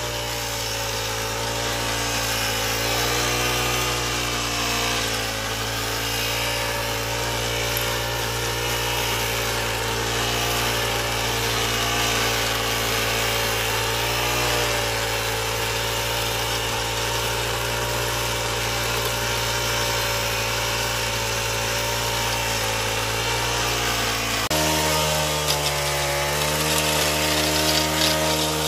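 Brush cutter engine running at working speed, driving a rotary weeder attachment through dry soil; its pitch wavers slightly as it works, and the tone shifts abruptly near the end.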